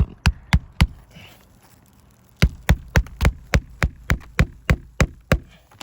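Hand hammer driving a roofing nail under a lifted asphalt shingle: a few quick strikes, a pause of about a second and a half, then a steady run of about a dozen strikes at roughly four a second until the nail sits flush.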